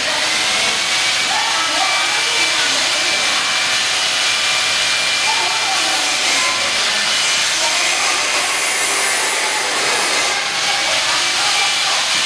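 A motor-driven machine running steadily: a loud even hiss with a thin high whine held on one pitch, starting abruptly and not letting up.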